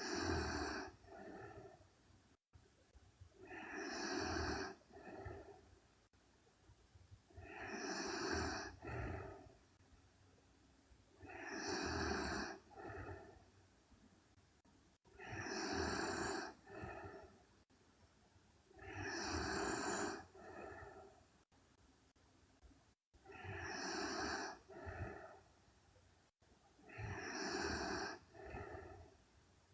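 A young woman snoring in her sleep, one rasping snore about every four seconds, each followed by a shorter, softer breath.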